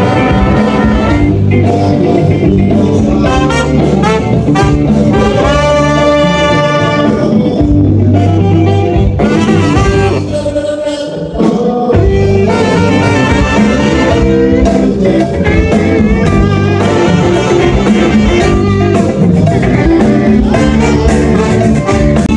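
Live band music with drums and electric bass, with singing.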